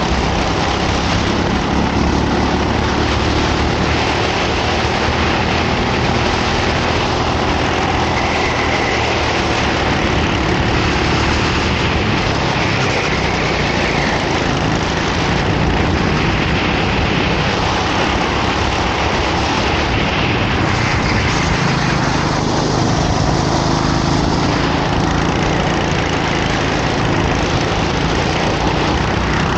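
Racing kart engine running hard, its pitch rising and falling as the throttle is opened and closed through the laps.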